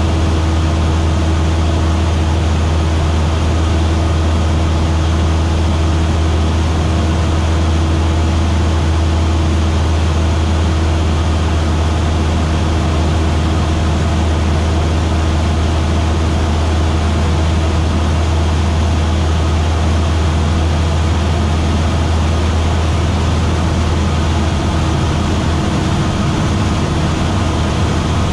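Single-engine light aircraft's piston engine and propeller droning steadily in cruise, heard inside the cockpit as a loud, even, low hum.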